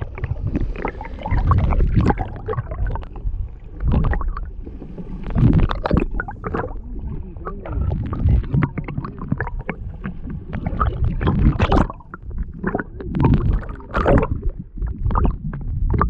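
Muffled underwater rumbling and sloshing of water moving around a submerged camera, with uneven gurgles and knocks.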